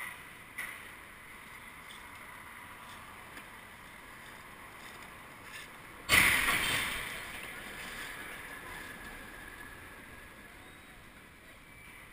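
A passing truck strikes the top of a parked FedEx box truck: a sudden loud impact about six seconds in, with a scraping tail that fades over about three seconds, over steady street traffic.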